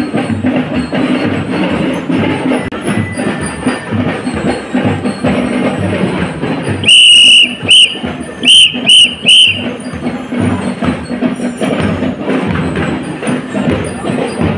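Marching band music plays throughout. About seven seconds in, a majorette leader's whistle gives five loud, shrill blasts: one long, then four short.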